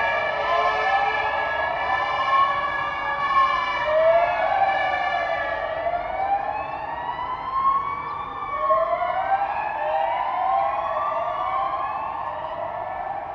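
Several fire-engine sirens wailing at once, each rising and falling slowly in pitch and out of step with the others. A steady held tone sounds under them in the first half and fades out, and the whole gets quieter toward the end.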